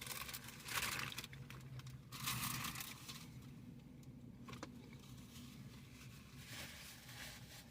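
Faint rustling and crinkling of a fast-food paper bag and wrapper in three short bursts, over a low steady hum.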